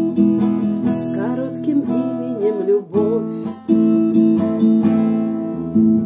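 Acoustic guitar strummed through the song's closing bars, chords ringing. A woman's voice sings wavering held notes over it for the first three seconds or so, then the guitar plays alone, with a fresh strum about three and a half seconds in.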